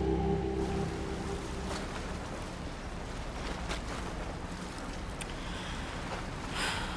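Steady waterside ambience: sea water washing and wind noise, with a few faint short sounds over it.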